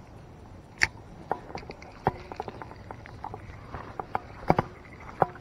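Irregular clicks and light taps from a spinning rod and reel being handled close by, with a sharper click about a second in and two more near four and a half seconds.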